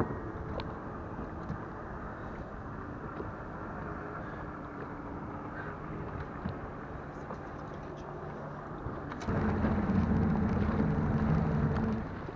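Steady rush of wind and water. About nine seconds in, a small boat motor starts a louder, steady hum and cuts off abruptly about three seconds later.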